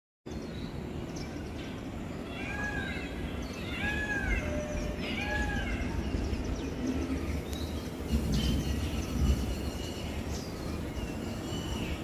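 Indian peafowl (peacock) calling three times in quick succession, each call a short arched wail. Steady wind noise runs underneath, and fainter chirps from other birds come in over the second half.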